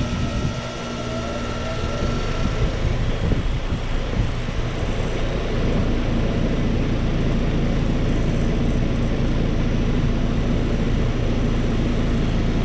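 A 2011 Trane XB13 heat pump's outdoor unit coming up to speed just after start-up: the Climatuff reciprocating compressor hums steadily while the condenser fan spins up, with a faint tone rising in pitch and the sound growing louder over the first few seconds, then running steadily with a rush of air.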